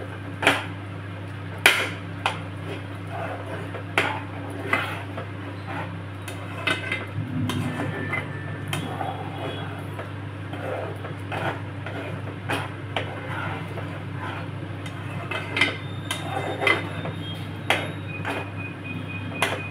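A metal spoon clinking and scraping against a steel pan while stirring a thick curry, in irregular knocks about once a second, over a steady low hum.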